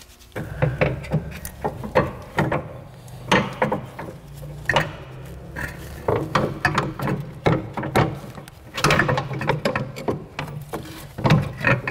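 Irregular knocks, clunks and scraping as a rear strut and coil spring assembly is worked up into a car's rear suspension, metal parts bumping against the control arms and subframe while a pry bar is levered against them.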